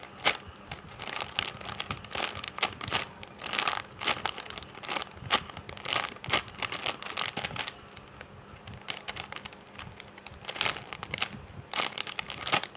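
Clear plastic bag crinkling in irregular crackly bursts as a squishy toy inside it is handled and squeezed, with a quieter stretch a little past the middle.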